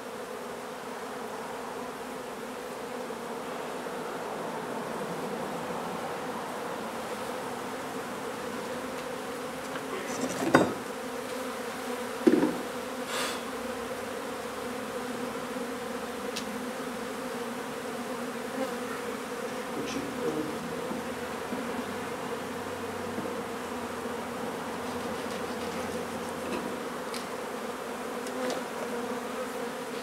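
A honey bee colony buzzing in a steady hum as its comb is cut out and moved into a hive box. Two sharp knocks stand out, about ten and twelve seconds in.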